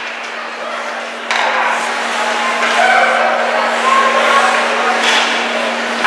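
Ice hockey skates scraping and carving on the rink ice, with voices calling out over a steady low hum; it gets louder about a second in.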